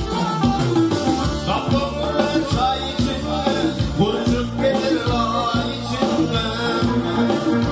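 A man singing into a microphone over a Korg keyboard playing the melody with a built-in drum rhythm.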